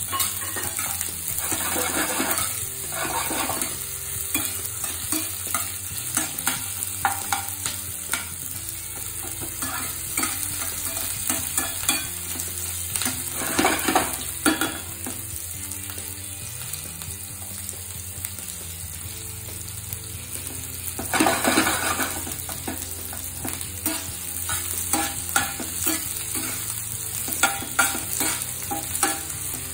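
Chopped onions frying in hot mustard oil in a stainless steel pan, being fried toward golden brown: a steady sizzle, with a metal spatula stirring and scraping the pan now and then, loudest about 21 seconds in.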